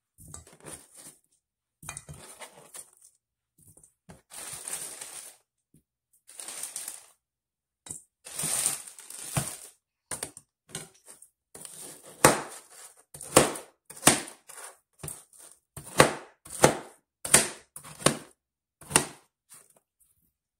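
Knife cutting chunks of fresh pineapple on a plastic cutting board. There are a few longer noisy strokes at first, then from about halfway a run of sharp chops, one or two a second.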